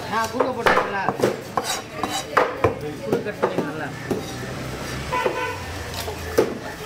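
Large knife scraping the scales off a whole koduva (Asian sea bass): a run of short, irregular rasping strokes, about two a second, as the blade is drawn down the fish held upright on the cutting block.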